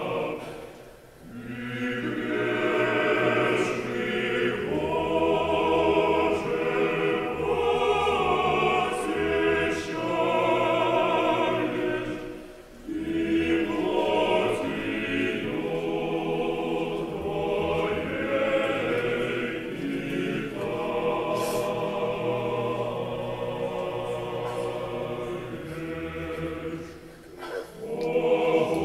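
Church choir singing slow sacred chant in long phrases, with short breaks about a second in, near the middle, and shortly before the end.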